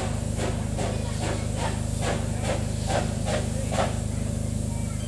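Steam locomotive working slowly, its exhaust chuffing at about two and a half beats a second over a steady hiss of steam. The beats stop about four seconds in and the steam hiss carries on.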